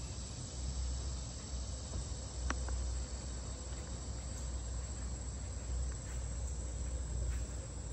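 Steady outdoor chorus of insects with a low rumble underneath, and a single sharp click about two and a half seconds in.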